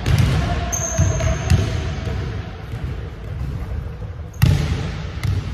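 Basketball bounces on a hardwood gym floor in a large hall: several thuds in the first second and a half, then a louder impact about four and a half seconds in as a shot comes down at the rim. A brief high squeak about a second in.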